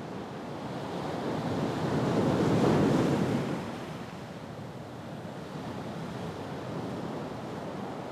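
Rough sea surf breaking on shore rocks, with wind. The surf swells to its loudest about three seconds in, then settles to a steady rush.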